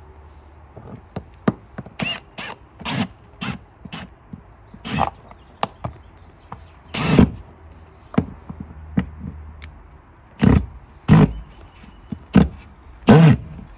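A run of irregular knocks and clatters from hands-on installation work, as parts are fastened in place: about a dozen short, sharp sounds, the loudest a little past the middle and near the end.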